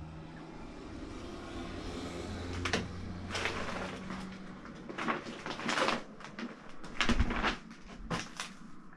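A series of wooden knocks, creaks and scrapes, like furniture or a hinged bed frame being handled in a small empty room, with a heavy thump about seven seconds in.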